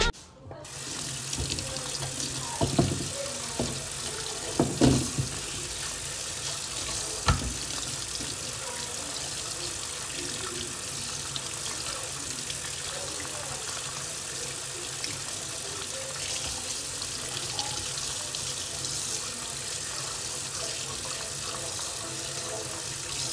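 Kitchen mixer tap running steadily into a stainless steel sink, the stream splashing over hands rinsing a piece of fruit. A few short knocks come in the first several seconds.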